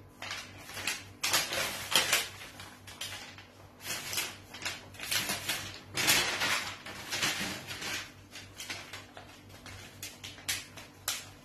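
Large sheet of pattern-drafting paper being handled and folded by hand, rustling and crinkling in irregular bursts, loudest about two seconds in and again around six seconds.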